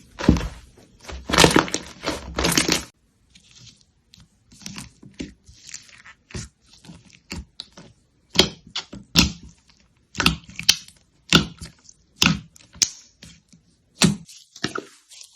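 Slime being squished and pressed by hand, giving irregular sticky pops and crackles. A dense, louder run comes in the first three seconds, then sparser separate pops.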